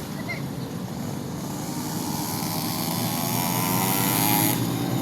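A small motor running with a steady buzz, growing louder, with a high hiss that cuts off near the end.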